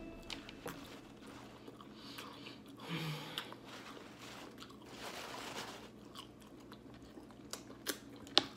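Close-miked chewing of a stuffed bell pepper, the firm pepper crunching, with wet mouth clicks throughout. A few sharp lip smacks come near the end as a finger is licked.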